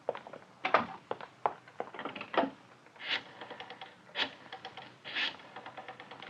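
Radio-drama sound effects: footsteps as knocks about half a second apart, then a telephone being dialled, three sharp clicks about a second apart, each followed by a fast rattle of fine clicks as the dial runs back.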